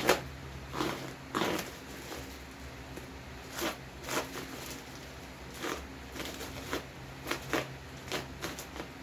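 Bubble wrap and plastic packaging crinkling and crackling in short, irregular bursts as it is handled and unwrapped.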